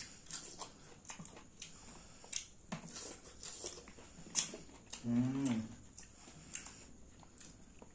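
Close-mic eating of green mussels in Padang sauce: wet chewing and mouth smacks with sharp clicks of mussel shells being handled and pried apart. About five seconds in comes a short hummed voice sound of enjoyment.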